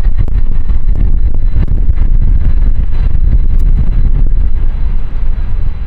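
Jet airliner engines at high power close by: a loud, deep, crackling rumble.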